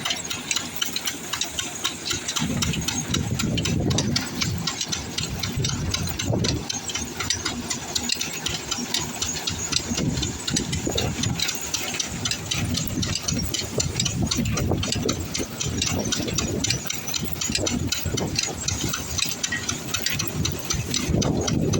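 An engine running steadily, with a rattling, ticking mechanical clatter and a hiss over it.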